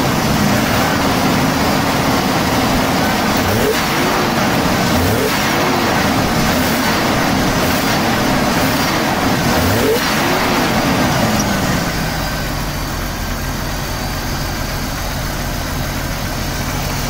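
Jeep Cherokee XJ 4.0 litre inline-six, with freshly fitted four-hole fuel injectors, revved by hand in repeated quick throttle blips. About twelve seconds in it settles to a steady idle.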